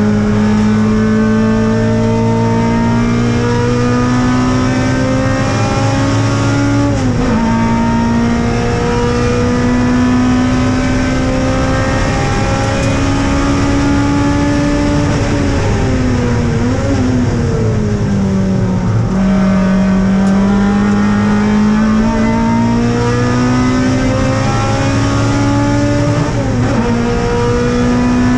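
Mazda MX-5's four-cylinder race engine revving hard, heard from inside the stripped-out, roll-caged cabin. The revs climb through the gears with an upshift about a quarter of the way in, fall under braking with a quick blip on a downshift past the middle, then climb again to another shift near the end.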